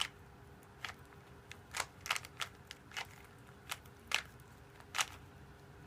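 Plastic Rubik's cube being twisted: about nine sharp clicks and clacks of its layers turning, at irregular intervals.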